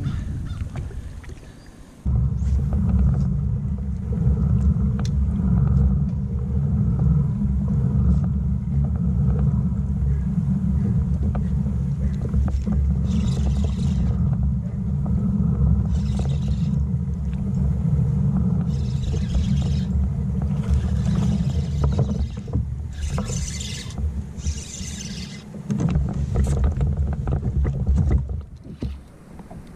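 Wind buffeting the microphone: a heavy, steady low rumble that drops out for a few seconds near the end.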